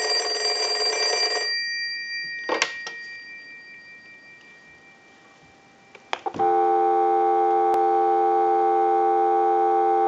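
Automatic Electric Monophone desk telephone's bell ringing on a test ring cycle. The ringing stops about a second and a half in and the gongs die away over a few seconds, with a clack about two and a half seconds in as the handset is lifted. About six seconds in, after a couple of clicks, a steady dial tone starts and holds, taken from the phone's network by an amplified pickup.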